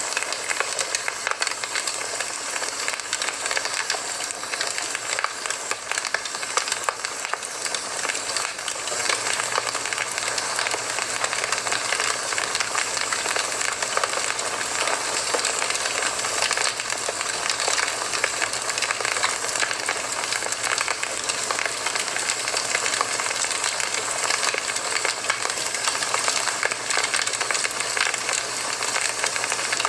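Campfire burning: a dense, steady run of small crackles and pops over a soft hiss.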